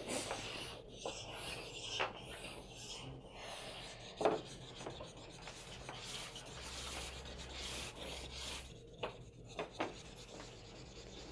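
A chalk-pastel stick rubbed back and forth over drawing paper, faint, with a few light taps of the stick on the sheet.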